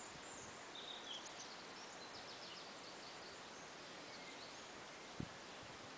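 Faint garden background with small birds chirping in short high calls and a quick trill during the first three seconds, then a single low thump about five seconds in.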